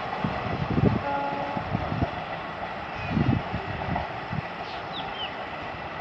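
Rumble of a receding express train hauled by a WAP-4 electric locomotive, with irregular low thumps. About a second in, a faint distant horn sounds briefly, and a few short high chirps come near the end.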